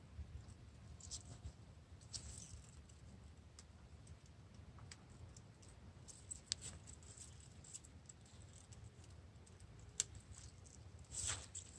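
Faint scattered clicks and short rustles of bean pods being picked from the plants, with a sharper click about ten seconds in and louder rustling near the end.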